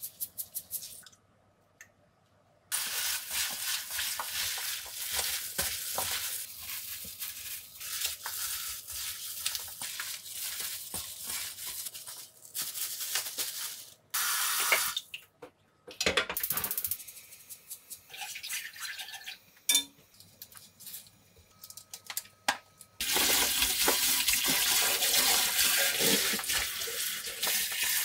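A plastic-gloved hand tosses seasoned napa cabbage with chili flakes and green onions in a stainless steel bowl, giving a wet, crinkly rustle in bouts. From about 23 s a kitchen faucet runs steadily into a steel sink over greens in a bowl being rinsed.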